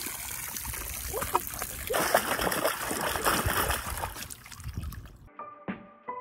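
An Australian Kelpie pawing and splashing the water in a plastic kiddie pool, loudest in the middle. About five seconds in it gives way to light plucked-string background music.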